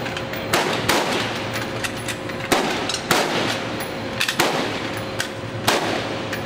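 Single rifle shots from several shooters on an M4/M16-family firing line, about seven cracks at uneven intervals, each with a brief tail. A faint steady hum runs underneath.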